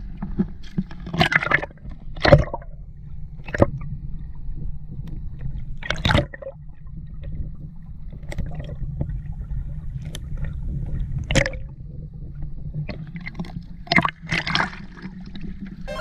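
Seawater gurgling and sloshing around a camera microphone dipped underwater, over a steady low rumble. Several sharp splashes or knocks come through, the clearest at about 2, 6 and 11 seconds in.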